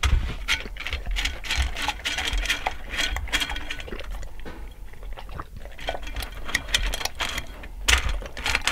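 Dog crunching dry kibble from its bowl, with many quick, irregular clicks and crackles as the pieces rattle in the bowl.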